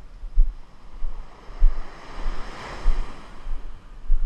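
Small surf washing up a sandy beach: one wave rushes in with a swelling hiss that peaks in the middle and then fades. Low thumps on the microphone come about once a second.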